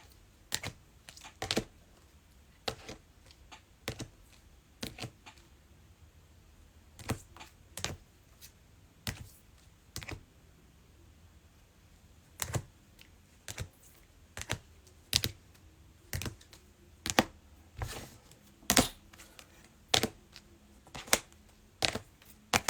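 Trading cards being set down on a tabletop one by one while being sorted into piles: separate sharp taps and clicks at an irregular pace, roughly one a second.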